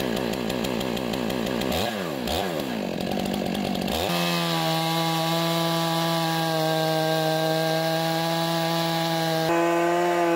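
Chainsaw on a Logosol F2 chainsaw mill, just started and running unevenly with a couple of quick revs. About four seconds in it goes to full throttle at a steady high pitch as the chain rips along the log under load.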